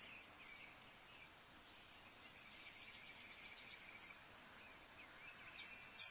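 Near silence: faint outdoor background hiss with scattered high, distant chirping.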